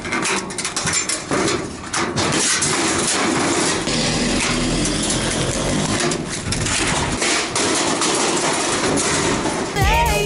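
Sheet-metal fluorescent light fixture housings clanking and rattling as they are shifted and their wires cut out with tin snips, with a steady engine rumble underneath from about halfway.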